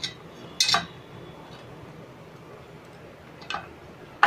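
A few light clinks and taps as chopped onion and green chilli are tipped from a ceramic plate into the plastic bowl of a hand chopper. The loudest comes under a second in, with single taps about three and a half seconds in and near the end.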